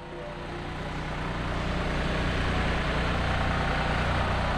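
Heavy vehicle engine running steadily with a low, even hum, growing louder over the first two seconds and then holding.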